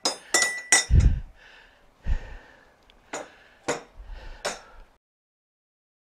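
Metal hand tools clinking and ringing against metal at a workbench: a quick run of three clinks, two dull thumps, then three more spaced clinks, cutting off suddenly about five seconds in.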